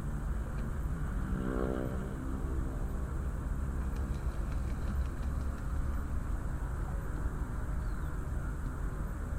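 Steady low rumble of town and harbour traffic, with one motor vehicle's engine briefly standing out about a second and a half in, and a few faint clicks a little later.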